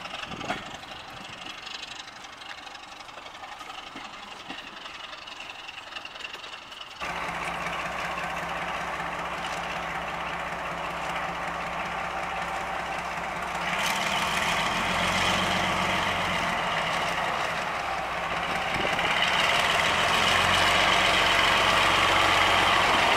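Class 42 Warship diesel-hydraulic locomotive's twin Maybach diesel engines running as it draws slowly alongside a platform, growing louder in steps as it nears, with a high whine on top near the end. Before it, for about seven seconds, the quieter sound of a train's coaches rolling away down the track.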